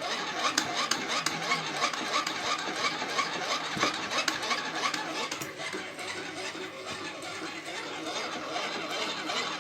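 Hand-cranked insulation resistance tester (megger) being cranked to test a circuit's insulation: a steady rasping whir from the crank and generator, beating about twice a second for the first few seconds.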